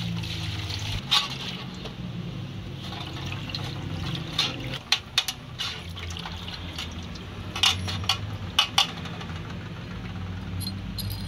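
Hands sloshing and splashing in a metal basin of liquid while washing common rail injector parts, with several short sharp splashes and clicks. A steady low hum runs underneath.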